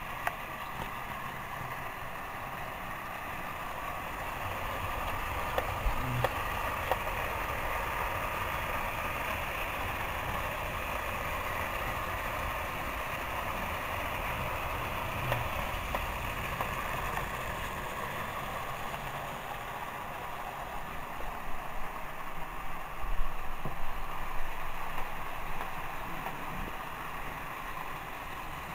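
Motorized Trackmaster toy trains running on plastic track: a steady whirring of small motors and gears, with scattered clicks and a cluster of louder knocks and rattles about three-quarters of the way through.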